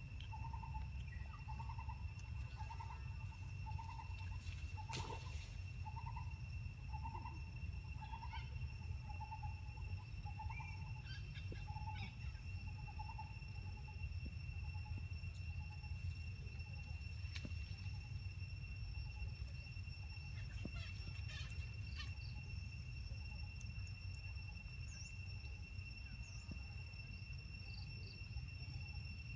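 Outdoor ambience: a bird calls one short note over and over, about twice a second, growing fainter and dying away about halfway through. Under it are a steady high-pitched insect drone and a low rumble.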